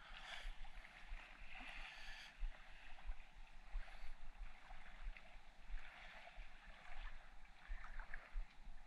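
Shallow seawater sloshing and splashing unevenly as someone wades through it, with frequent short low thumps on the microphone.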